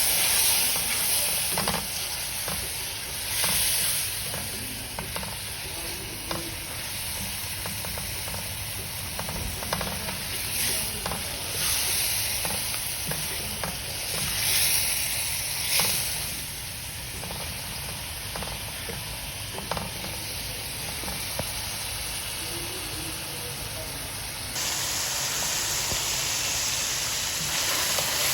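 Chicken pieces sizzling in hot oil in a pan while being stirred, with a spatula clicking and scraping against the pan; the hiss surges every few seconds and grows louder near the end.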